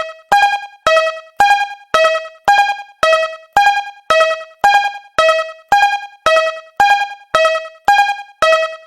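Japanese railroad crossing alarm ringing: evenly spaced bell-like dings, about two a second, alternating between a higher and a lower tone.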